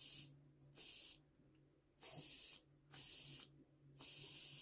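About five short, faint puffs of breath hissing at a small carburettor's fuel inlet with a mouth pressed to it. This tests whether the freshly refitted float needle seals off the flow.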